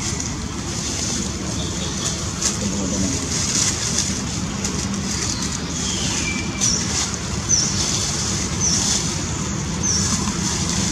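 Outdoor ambience: a steady low rumble like distant road traffic, under the crackle of dry leaves being handled. In the second half a bird gives a short, high, falling chirp four times, about a second apart.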